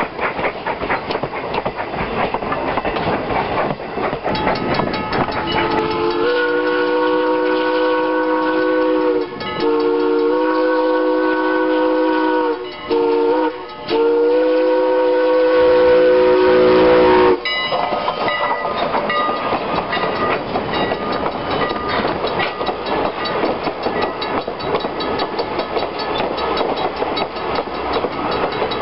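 Rhythmic clickety-clack of passenger coach wheels over rail joints. Then Strasburg Rail Road No. 89's steam whistle sounds a chord of several tones in four blasts, long, long, short, long: the standard grade-crossing signal. The clatter of the coaches passing returns after it.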